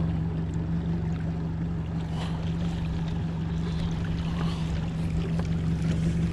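Mercury outboard motor running steadily at trolling speed, a constant low hum, with water noise against the boat's hull.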